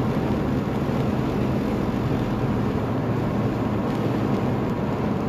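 Steady road noise inside a car's cabin at highway speed, an even low drone that does not change.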